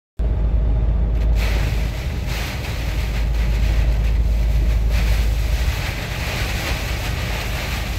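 Heavy downpour in a hailstorm: a loud, dense, steady hiss of rain and hail beating down over a strong low rumble, starting abruptly.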